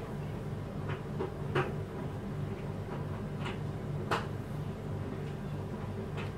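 Quiet handling noise: a few light taps and clicks as a metal piping nozzle is pressed into soft gum paste discs on a plastic mat, over a steady low hum.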